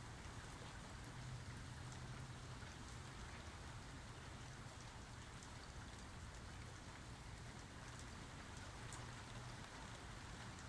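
Steady, quiet rainfall, with scattered individual drops ticking through the patter.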